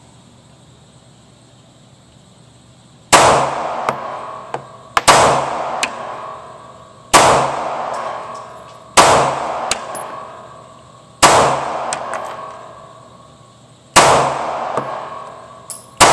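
Kel-Tec PF9 9mm pistol firing slow, aimed single shots, about seven of them roughly two seconds apart, starting about three seconds in. Each shot rings and echoes away in the indoor range.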